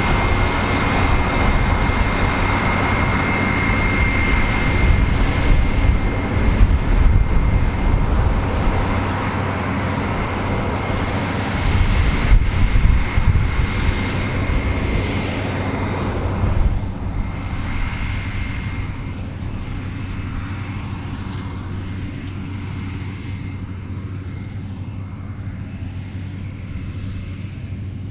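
New Holland CR11 combine harvester running while harvesting barley: a steady machine drone with a thin high whine, growing gradually fainter over the second half.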